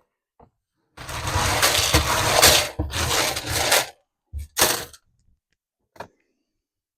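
Shelled corn being poured into a feeder, the kernels rattling down in a long rush of about three seconds that breaks off briefly partway through, followed by two or three shorter pours.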